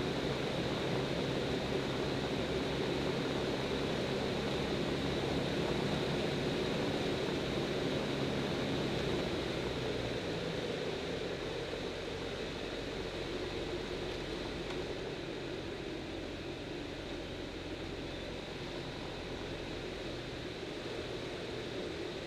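X-Air Hanuman light aircraft's engine and propeller running steadily, heard from inside the cockpit with a rush of wind noise. About ten seconds in, the engine note drops and the sound gets a little quieter as power comes back for the landing approach.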